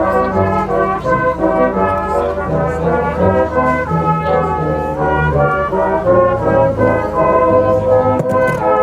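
Brass band playing a tune, with several brass instruments sounding together and the notes changing steadily.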